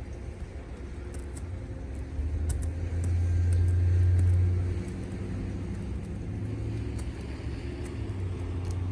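A low, steady motor rumble, as from a nearby engine, swells from about two and a half seconds in for a couple of seconds and then settles back. Over it come faint light crunches of a cat's paws stepping on icy snow.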